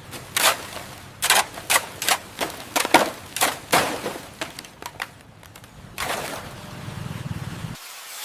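Hammering: a quick, irregular run of sharp knocks, about three a second, for the first five seconds. Then a rough, steady noise follows for a couple of seconds and cuts off suddenly near the end.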